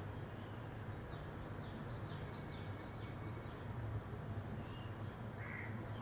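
Faint bird calls: a run of short chirps, then one louder call near the end, over a steady low hum.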